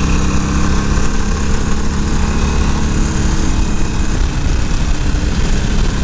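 Motorcycle engine running while under way, with wind rushing over the microphone.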